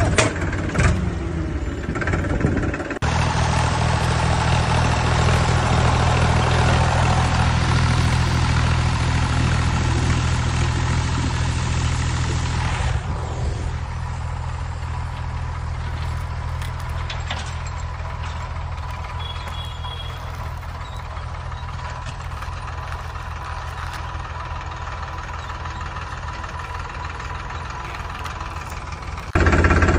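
Toy backhoe loader running, with a steady low engine-like drone. It gets louder about three seconds in and drops back a little about halfway through.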